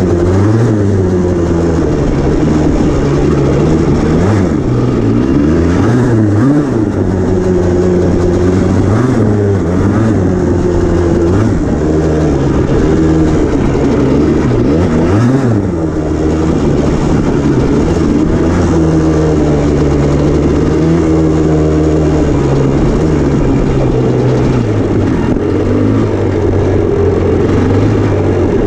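Yamaha Blaster's two-stroke single-cylinder engine running under load on a trail ride, its pitch repeatedly rising and falling with the throttle.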